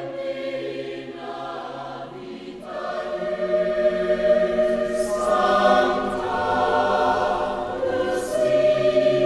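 Choir singing slow, held notes. More voices come in about three seconds in, and the singing grows fuller and louder.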